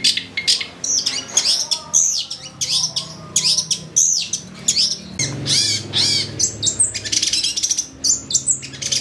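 Long-tailed shrike (cendet) singing vigorously: a rapid, unbroken string of sharp, arching high chirps and varied mimicked notes. Lower sustained notes come in under it after about five seconds.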